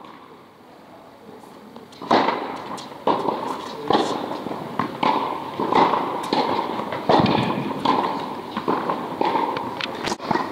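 Tennis ball struck by rackets and bouncing on the court during a rally, a sharp pop about once a second, each echoing in a large indoor tennis hall.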